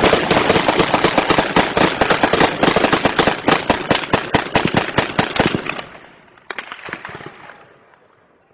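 Sustained automatic gunfire, loud and rapid at about seven shots a second. It stops about six seconds in, and a few more shots follow shortly after, echoing and dying away.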